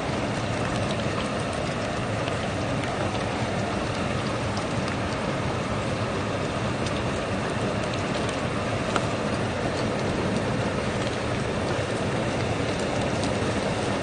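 Pork belly sizzling on a gas-stove griddle, with scattered small crackling pops, over a steady low rumble of wind and sea waves.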